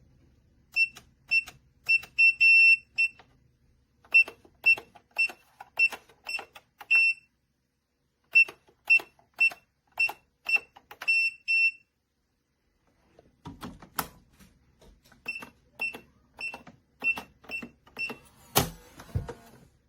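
Keypad on an ONNAIS biometric pistol safe beeping as buttons are pressed: three runs of short beeps at about two a second, each run ending in a longer beep. Fainter beeps and clicks follow, then a thump near the end.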